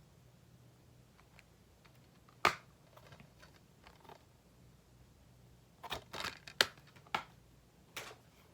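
Plastic slim DVD case being handled and snapped open: one sharp click about two and a half seconds in, then a quick run of clicks and snaps a few seconds later.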